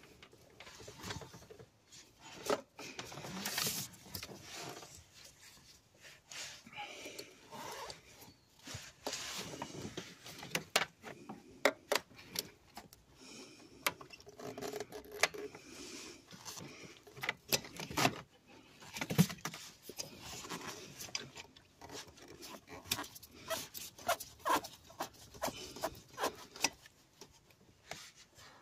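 Irregular clicks, taps and scrapes of hand tools and metal parts being worked in a car's engine bay, with a few louder knocks in the second half.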